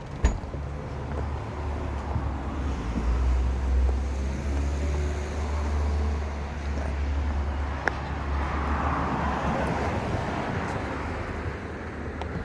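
Road traffic: cars passing, one swelling to its loudest about eight to ten seconds in and fading away, over a steady low rumble. A couple of sharp clicks stand out, near the start and about eight seconds in.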